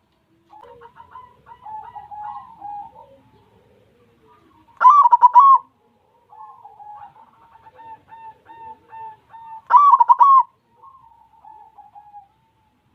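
White zebra dove (perkutut) cooing: runs of soft, quick coos, broken twice by a short, loud burst of song about five seconds apart.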